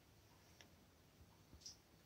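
Near silence, with a few faint ticks of kittens' paws and claws on a hard tile floor.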